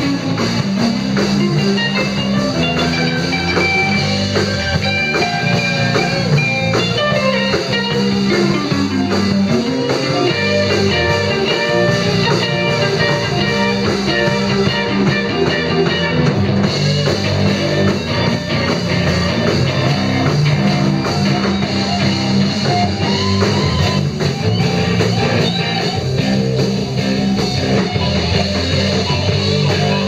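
Live band playing: electric guitar over bass guitar and a drum kit.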